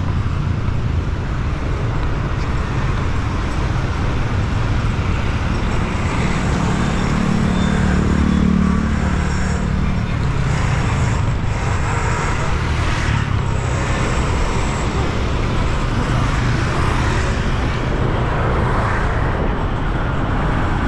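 Busy city street traffic: a steady stream of motor vehicles running past, with one vehicle's engine louder as it passes about eight to nine seconds in.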